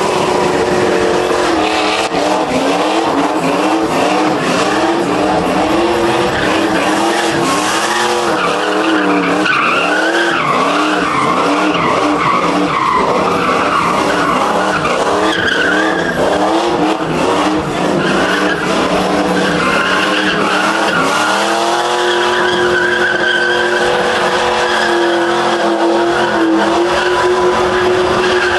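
Lowered pickup truck doing donuts with its tyres screeching. The engine revs rise and fall about once a second as it circles. About two-thirds of the way in, the engine climbs and holds a steady high rev while the rear tyres spin.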